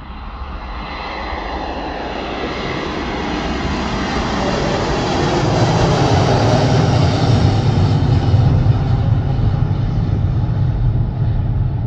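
Boeing 737 jet airliner taking off at full thrust and climbing overhead. The jet engine noise grows steadily louder, and a deep rumble joins it about halfway through and stays to the end.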